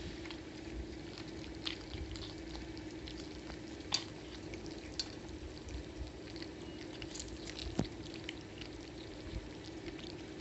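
Cats chewing and crunching small whole fish from a steel plate: scattered wet clicks and crackles, with two sharper clicks, one about four seconds in and one near eight. A steady low hum runs underneath.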